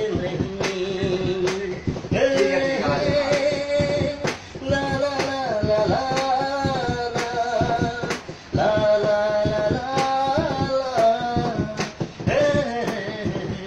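A man singing a Hindi film song in a long, drawn-out melodic line over a steady, regular percussion beat.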